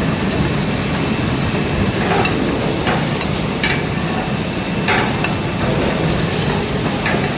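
Steady rumble of an H-beam assembly, welding and straightening machine running, with about five short sharp clicks or clanks scattered through.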